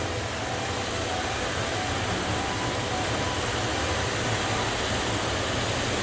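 Steady roaring rush of a flash flood, with a deep rumble underneath.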